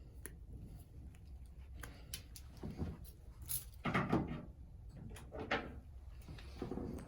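Handling of hand tools and short lengths of electrical wire: scattered clicks and several short scraping sounds, the strongest about four seconds in.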